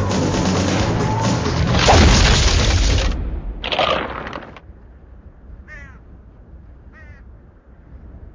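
Film soundtrack: loud music over a dense rushing noise, which cuts off about three seconds in. A short loud whoosh follows, then quiet with two brief chirping animal calls.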